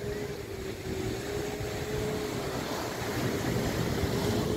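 Speedboat engine running steadily, at one held pitch, as it tows a parasail aloft, under a rushing wash of surf and wind that grows louder about halfway through.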